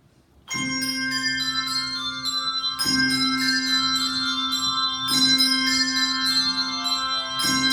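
Handbells playing a tune: many quick ringing bell notes over a low bell struck about every two and a half seconds, starting about half a second in.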